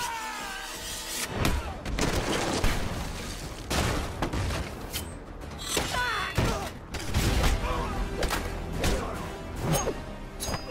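Action-film fight soundtrack: a music score under a run of sudden hits, thuds and crashes.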